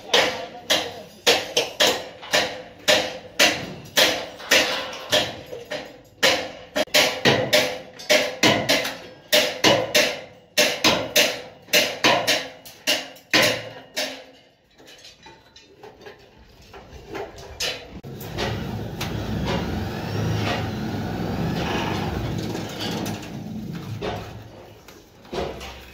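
Repeated hammer blows on steel-and-timber formwork, about two sharp strikes a second, stopping about halfway through. After a short lull, a steady machine noise takes over, and a few strikes return near the end.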